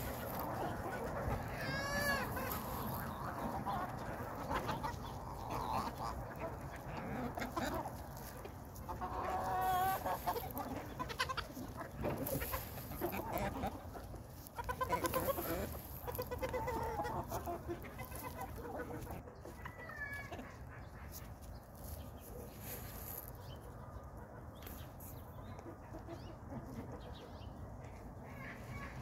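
A backyard flock of mixed-breed hens clucking and calling while they forage, with louder bouts of calls about a third of the way in and again around halfway.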